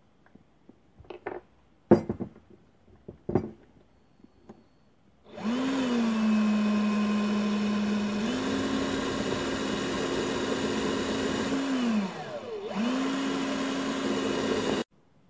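A few knocks as parts are handled, then a cordless drill's motor runs at a steady high speed, its pitch stepping up slightly partway through. Released with a falling whine as it spins down, it is run again for about two seconds and stops suddenly near the end.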